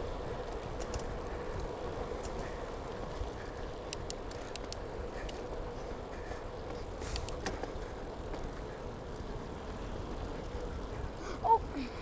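Wind rush and road noise on a foam-covered clip-on mic worn by a cyclist riding along a road: a steady low rumble with a few faint clicks.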